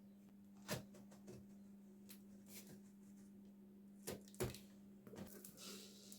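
Near-silent room tone with a steady low hum and a few soft knocks or clicks, one about a second in and two around four seconds in.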